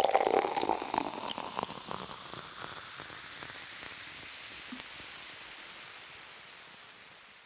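A crackling, fizzing hiss full of sharp clicks, loudest at the start and dying down over about two seconds into a steady hiss that fades out near the end.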